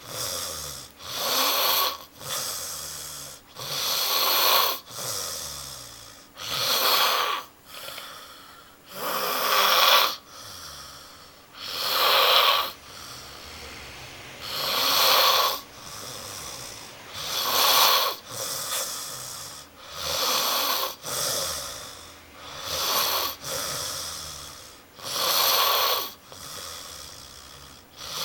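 A man snoring loudly in his sleep: rough, rasping snores that swell and fade with each breath, recurring about every two to three seconds.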